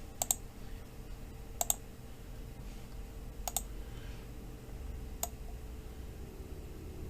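Computer mouse clicking, mostly quick double-clicks, four times about a second and a half to two seconds apart, over a faint steady hum.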